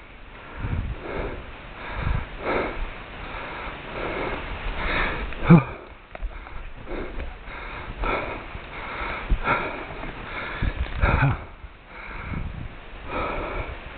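Heavy nasal breathing and sniffing, a quick puff roughly every second, with a couple of harder, throaty exhales in the middle and about eleven seconds in.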